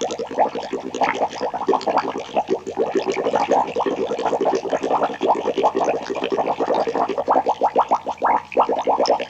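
Liquid boiling hard: a dense, continuous bubbling of short rising bloops, close to ten a second.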